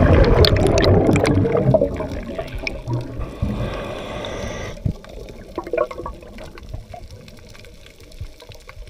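Scuba exhalation bubbles rushing and gurgling past an underwater camera, loudest over the first two seconds and then fading to scattered pops, with a brief hiss about halfway.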